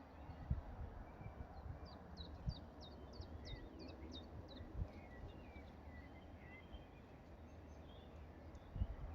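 Faint birdsong: a quick run of about seven short, high, falling notes about two seconds in, with softer scattered chirps around it. A low rumble and a few dull low thumps sit underneath.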